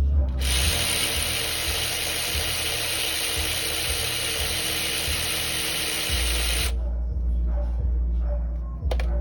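A power tool runs steadily for about six seconds, starting just after the beginning and cutting off abruptly about two-thirds of the way through, as bolts are taken out during an engine teardown.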